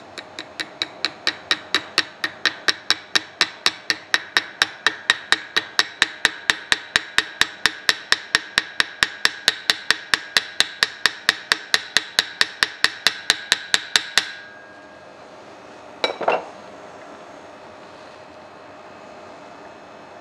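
Ratchet wrench clicking steadily, about four or five clicks a second, as a nut on the end bell of the lathe's electric motor is turned, stopping after about fourteen seconds. A single brief metal clatter follows about two seconds later.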